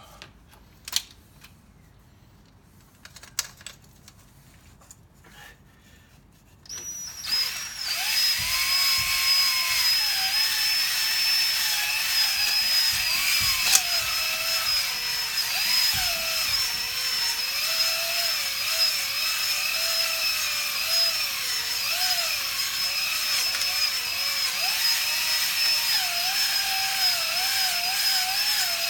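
An electric drill starts about seven seconds in and runs steadily with a high whine. Its lower pitch wavers as the load on it changes. A few light clicks come before it starts.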